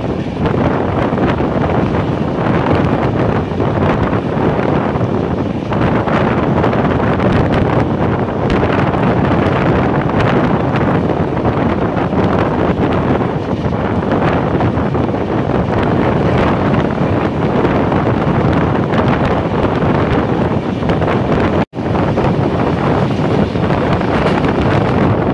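Wind buffeting the microphone from the open doorway of a moving express passenger train, over the steady running noise of the train on the track. For an instant near the end the sound drops out completely.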